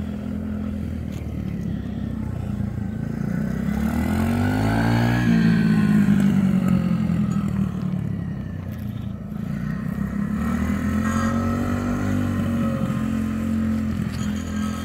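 Small dirt bike engine running as it is ridden, revving up and easing off a few times; the pitch climbs steeply a few seconds in, is loudest about six seconds in, and builds again a little later.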